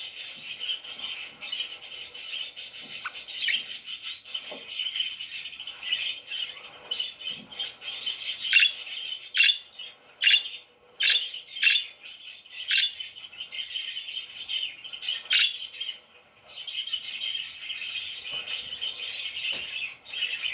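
Parakeets chirping and chattering steadily, with a run of louder, sharp chirps about halfway through.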